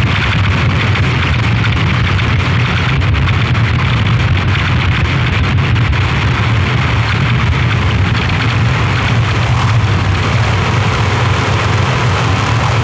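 Harsh noise music: a loud, unbroken wall of noise with a heavy low rumble and a hiss above it, with no beat or melody.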